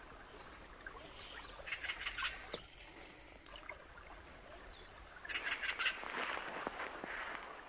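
Azure-winged magpies giving harsh, rapid chattering calls in short bursts, a brief one about two seconds in and a louder, longer one about five seconds in.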